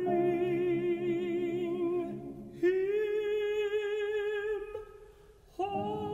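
Background music: a singing voice holds one long note with vibrato, then a second, higher one, over soft accompaniment. The music thins out briefly near the end, then comes back fuller.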